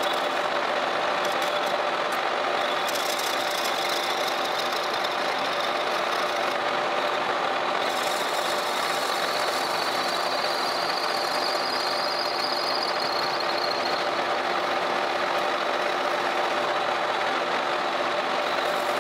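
Metal lathe running with a steady gear hum while a turning tool cuts a small steel workpiece: a hiss and a high thin cutting tone that rises slightly, then fades about three quarters of the way through as the cut ends.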